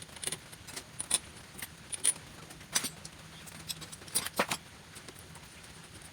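Small metal parts and tools clinking and tapping against each other, about a dozen irregular sharp clicks with a brief metallic ring, during hand assembly of an electric air compressor; a close pair near the middle is the loudest.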